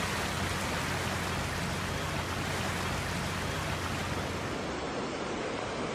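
Steady hiss of heavy rain and rushing water, with a faint low hum underneath; the sound shifts slightly about five seconds in.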